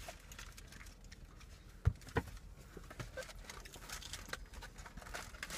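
Faint crinkling of a paper burger wrapper and a cardboard meal box being handled, with two thumps about two seconds in.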